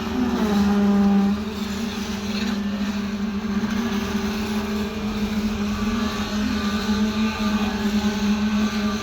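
A motor running steadily at an even pitch, giving a strong continuous hum that wavers only slightly, typical of machinery running during a concrete pour.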